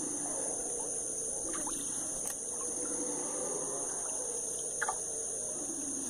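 Howler monkeys howling, a low, wavering chorus, over a steady high-pitched drone of forest insects.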